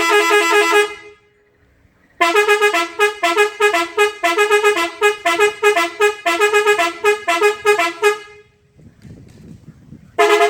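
Car horns driven by an electronic melody horn module, playing a rhythmic tune of quick horn pulses, about four a second, alternating between two pitches. A short held horn blast opens it, and another held blast starts near the end.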